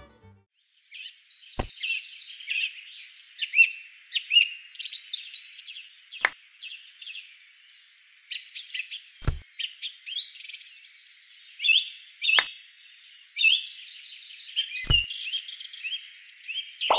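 Small birds chirping and trilling continuously, a bright birdsong ambience, with a few sharp knocks every few seconds.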